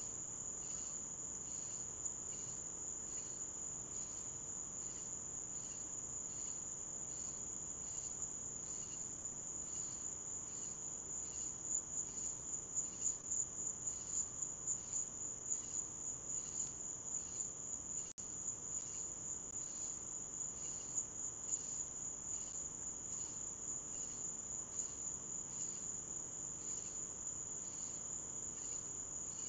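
Crickets trilling in a steady high-pitched chorus with an even pulse a little over once a second.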